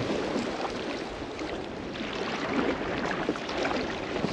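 Small sea waves lapping and sloshing against weed-covered rocks at the water's edge, an irregular splashy wash.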